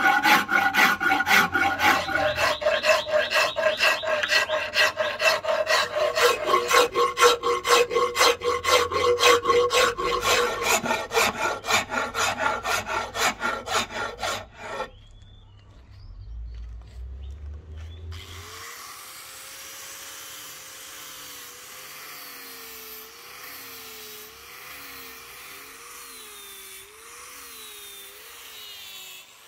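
Steel hand file rasping along a palm-wood axe handle in quick, even back-and-forth strokes, the strokes carrying a ringing pitch. About halfway through the filing stops, and a few seconds later an angle grinder with a sanding pad runs more quietly, its whine wavering up and down.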